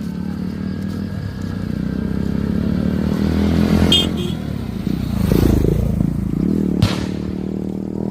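A vehicle engine running steadily and revving up in the middle, with a couple of sharp knocks, one about four seconds in and one near seven seconds.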